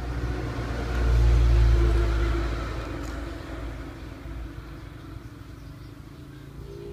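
A motor vehicle passing by: a low engine rumble that swells about a second in and fades away over the next few seconds.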